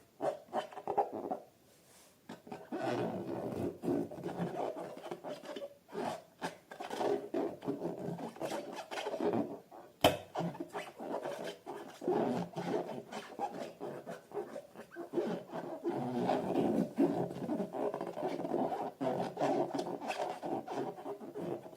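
Slime being squeezed and worked by hand, squelching with a steady run of small wet pops and crackles. There is a brief lull about two seconds in and one sharp pop about ten seconds in.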